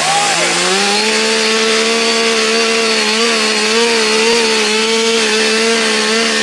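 Gas chainsaw revving up about half a second in, then held at high speed while cutting into the top edge of a wooden log, its pitch wavering slightly under the load.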